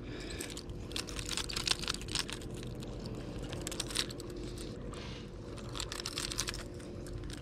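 Rapid, irregular small clicks and rattles of a swimbait's treble hooks and hardware as they are worked free from a caught bass's mouth by hand, over a steady low hum.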